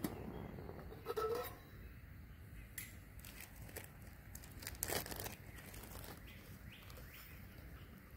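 A small plastic bag crinkling and rustling as it is handled, in short spells with a few sharp clicks, the loudest about a second in and about five seconds in.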